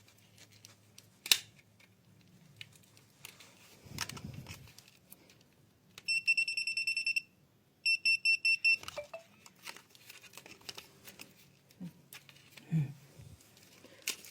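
Electrician's voltage tester beeping rapidly in two short runs a second apart, the sign that it is sensing a live wire. A sharp click and some rustling of handling come earlier.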